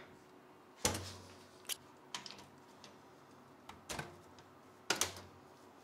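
Sharp clicks and knocks, a handful of separate ones spread about a second apart, the loudest near 1 s and 5 s in, as the mesh top panel of an Intel NUC 13 Extreme case is unclipped and pulled off by hand.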